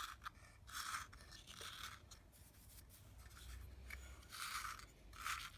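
Faint, short scraping and rubbing strokes, about four of them, as the hand coffee grinder's drawer and the freshly ground coffee are handled and inspected.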